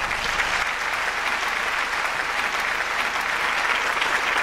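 Audience applauding, a dense steady clapping that holds at the same level throughout.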